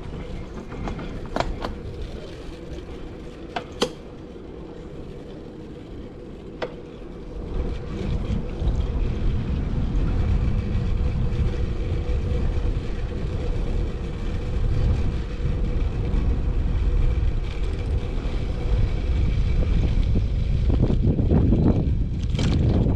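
Wind buffeting the microphone of a chest-mounted action camera on a moving road bike, with street traffic. A few sharp clicks in the first seven seconds; about seven seconds in, the low rumble of the wind grows much louder and stays so.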